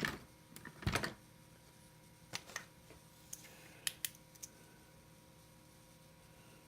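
A scatter of light clicks and taps, about eight in the first four and a half seconds, as chainsaw handle and throttle-linkage parts are handled on the bench.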